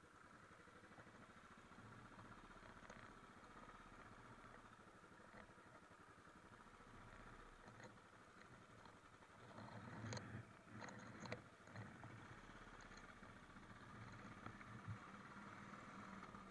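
Very faint, muffled Royal Enfield motorcycle engine running, with a short cluster of clicks and knocks about ten seconds in.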